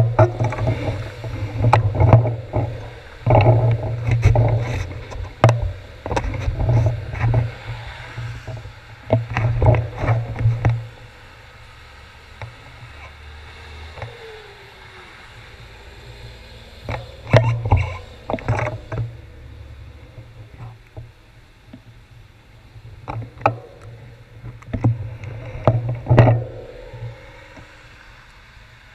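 Road traffic passing through an intersection on damp streets: a run of vehicle passes for the first ten seconds or so, then a quieter lull broken by a few more passes later.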